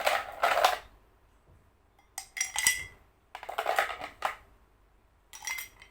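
Ice cubes being put into a glass, clinking against it in four separate bursts about a second apart, with brief ringing.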